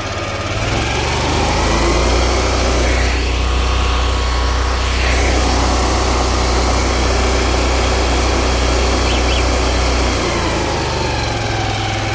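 Air-cooled engine of a van-mounted high-pressure sewer jetter running, with its 12 V radiator cooling fans on. The engine speeds up about a second in, holds a steady higher speed, and drops back down near the end.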